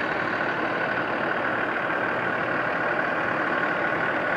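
Steady engine and road noise of a vehicle running without change, with no distinct knocks or changes in pitch.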